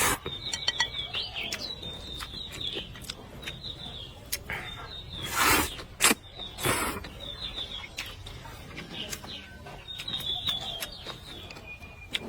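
Small birds chirping in quick high twittering runs, on and off, with small clicks throughout. There are a few short, louder noisy bursts about halfway through.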